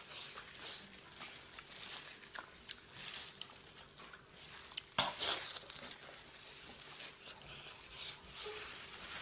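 Plastic food glove crinkling and wet sauce-covered braised pig intestine being squeezed and chewed, with scattered small sharp ticks and one sharper click about five seconds in.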